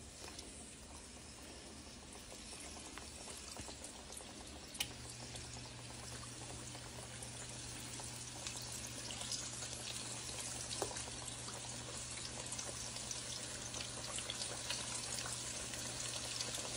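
Flour-coated chicken wings sizzling and crackling in hot vegetable oil in a pot, the frying growing slowly louder as more pieces go in, with a few light clicks. A low steady hum starts about five seconds in.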